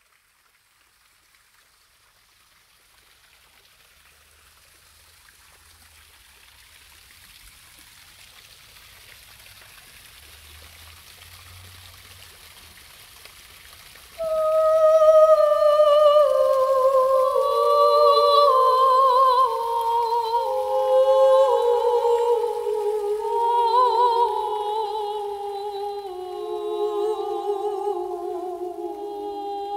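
A faint steady hiss grows slowly louder. About halfway in, a soprano voice starts humming a slow melody that wavers and falls gently in pitch.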